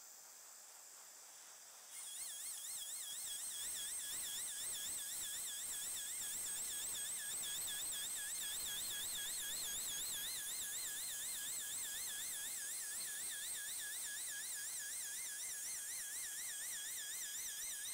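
2x72 belt grinder running with a chef's knife held against a wet 600-grit belt under an air-water mister, wet-sharpening the edge. It makes a whine that wavers up and down a few times a second over a steady hiss. It gets louder about two seconds in.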